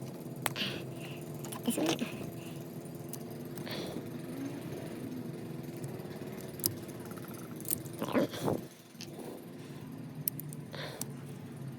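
Small parts and tools clicking and rattling as they are handled, over a steady low mechanical hum.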